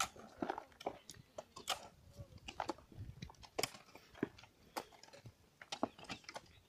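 Short-handled hoes striking and scraping dry, stony soil while a field bund is dug by hand: irregular crunching strokes from several diggers at once.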